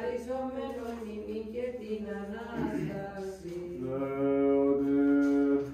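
Greek Orthodox liturgical chant by a single voice. The text is intoned on a reciting tone, then settles about three and a half seconds in onto a long, steady held note at a lower pitch, the loudest part.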